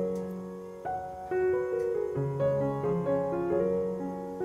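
Background piano music: a gentle melody of held notes changing every half second or so.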